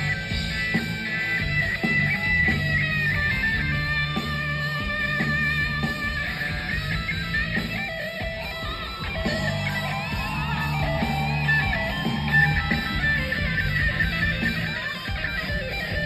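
Live rock band playing an instrumental passage: electric guitars with wavering high melodic lines over drums, heard from among the audience.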